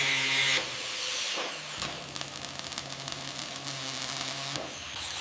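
Power tool running with a steady hum. There is a short hiss right at the start and a run of rapid clicks in the middle.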